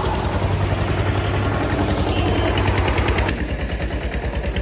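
Eicher 242 tractor's diesel engine working hard under load with a rapid, even knocking beat, over the noisy rush of a Tata Sumo's engine and its wheels spinning in loose dirt. About three seconds in, the high hiss drops away and the engine beat is left, duller.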